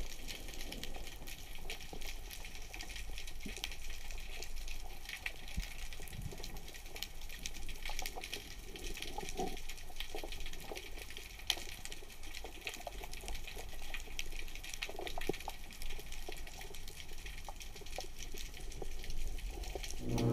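Underwater ambience of the sea: a steady crackle of faint clicks and ticks over a low rumble.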